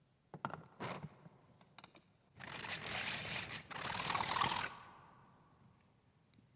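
Steel knife blade being ground: a few light knocks and clinks, then about two seconds of harsh, hissing grinding that stops suddenly and fades out briefly.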